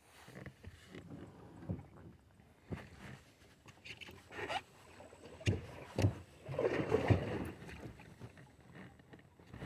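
Irregular knocks and thumps against a small plastic boat's hull, with a couple of longer rustling swishes, the loudest a cluster of knocks and a swish a little past the middle.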